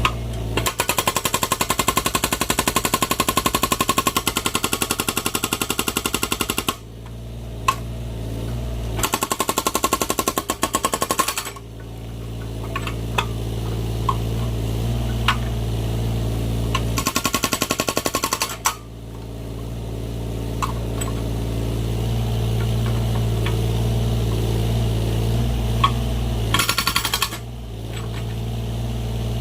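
Excavator-mounted hydraulic breaker hammering rapidly in bursts of a few seconds as it splits firewood logs, with the excavator's diesel engine running steadily between bursts and a few sharp knocks.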